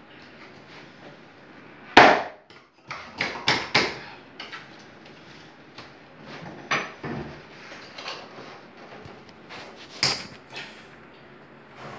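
Hand tools and stone pieces knocking and clattering on a stone tub deck during stone installation work: one sharp knock about two seconds in, a quick run of knocks shortly after, and another sharp knock near the end.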